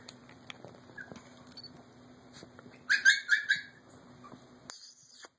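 Micro teacup poodle puppy giving a quick run of about four high-pitched, squeaky yips about three seconds in, over faint scuffling on a fluffy blanket.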